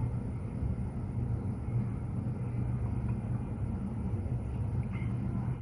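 Steady low rumble, with a heavy thump right at the very end.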